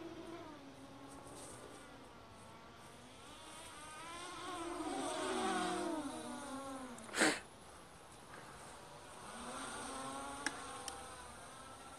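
Small Blade quadcopter's propellers buzzing, the pitch rising and falling as the drone changes throttle. A brief loud rush of noise about seven seconds in is the loudest moment, and two sharp clicks come near the end.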